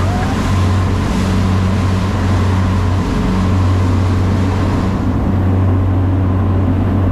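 Fishing boat's engine running steadily under way, a constant low drone, over the rush of the wake water and wind. The high rushing noise eases about five seconds in.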